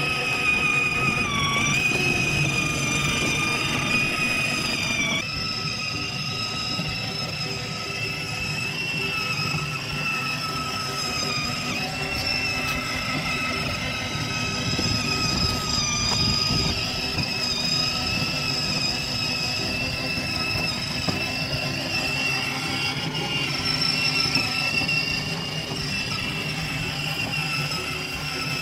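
The 6V electric drive motor and gearbox of a Kid Trax Teenage Mutant Ninja Turtles ride-on van whining steadily as it drives, over the rumble of its plastic wheels on concrete. The whine wavers a little in pitch and shifts about five seconds in.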